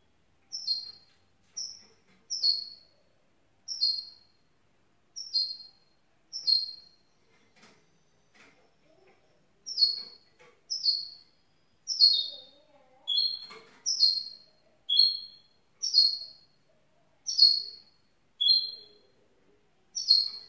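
Young goldfinch mule (goldfinch–canary hybrid) giving short, high chirps, each a quick falling note, repeated about once a second with a pause near the middle.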